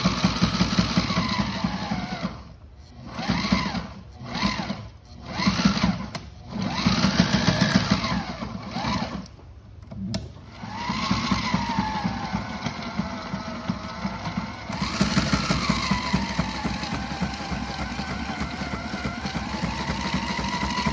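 Electric sewing machine stitching a binding and reinforcement patch onto marine fabric. It runs in stop-start spurts, the motor speeding up and slowing down, with several short runs through the first half and a long continuous run from about halfway in.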